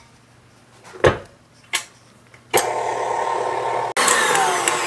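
KitchenAid Artisan tilt-head stand mixer whipping frosting. Two clunks as the head is lowered and set, then the motor starts about halfway through and runs steadily. Near the end its whine falls in pitch and fades as it winds down.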